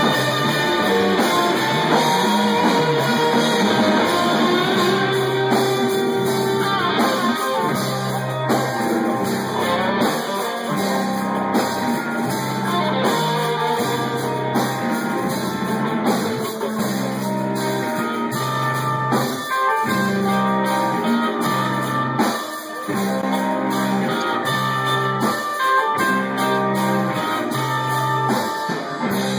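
Live rock band playing: electric guitars over a drum kit, held guitar notes with steady drum hits throughout.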